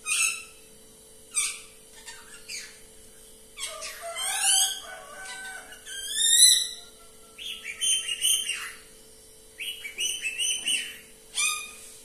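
Caged rose-ringed parakeet calling loudly: sharp, falling screeches at the start and near the end, a longer run of squawks gliding up and down in pitch a third of the way in, and two quick bursts of rapidly repeated calls after the middle.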